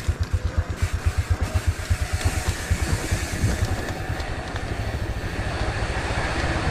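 Mountain bike riding fast down a rough dirt trail: rumble and rattle of tyres and frame with wind noise on the microphone, building toward the end. Under it a low rapid throbbing, about seven beats a second, fades out in the first half.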